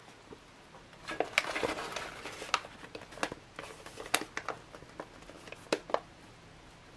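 A ration meal pouch crinkling and crackling as two hands squeeze rehydrated curry rice out of it. The crackles come in an irregular run, starting about a second in and stopping near the end.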